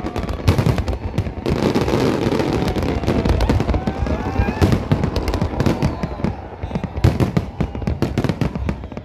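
A dense fireworks barrage: many shells bursting in rapid, overlapping bangs and crackles, without a break.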